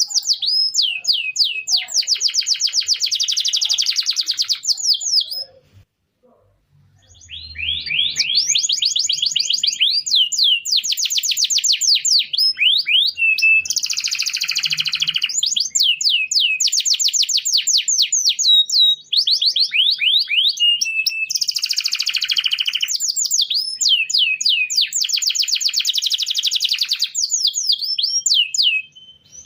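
Domestic canary singing: long, rapid trills and rolling phrases of repeated high sweeping chirps, with a pause of about two seconds roughly six seconds in.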